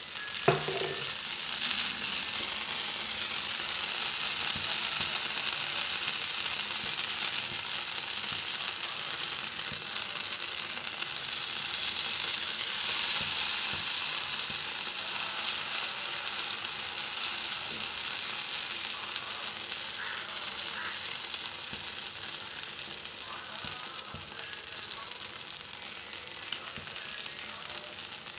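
An egg dosa frying on a hot pan: egg and batter sizzling steadily, with one sharp knock about half a second in.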